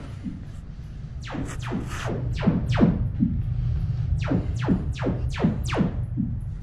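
Sonos speakers playing Trueplay tuning tones: quick sweeps that fall from very high to low pitch, three or four a second, with a short break in the middle, sounding like sci-fi laser blasts, over a steady low rumble. The sweeps are the test signal the system measures through the iPad's microphone to calibrate levels for the room.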